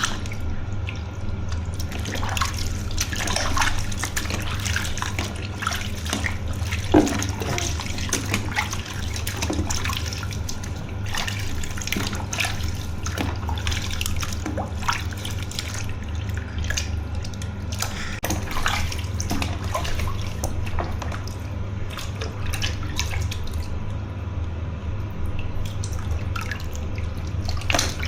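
Tap water running into a bathtub with splashing and dripping, and a short, louder sound about seven seconds in.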